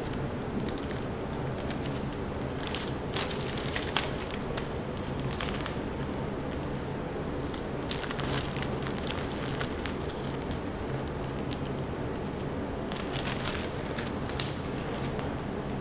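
Deflated foil balloon crinkling and crackling as it is handled and folded, in several separate bursts, over a steady low hum.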